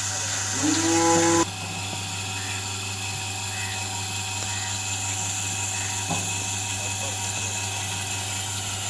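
Electric milking machine running steadily: a constant motor hum with a faint soft beat about once a second. A short rising call sounds about a second in.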